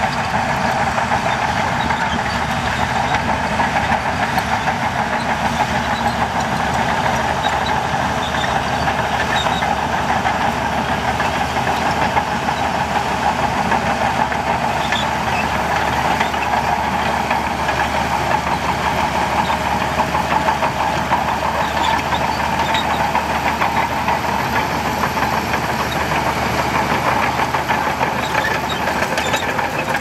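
Shantui DH17C2 crawler bulldozer's diesel engine running steadily under load as the dozer pushes sand, with scattered clanks from its steel tracks.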